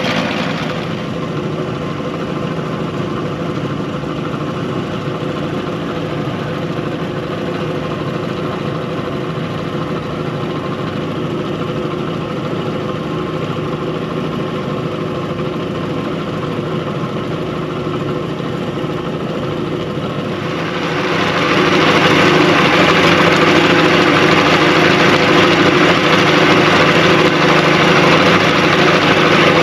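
1957 Kiekhaefer Mercury Mark 75 straight-six two-stroke outboard motor running under way. It eases to a lower, steady speed just after the start, then opens up about two-thirds of the way through, getting louder and brighter, and holds at the higher speed.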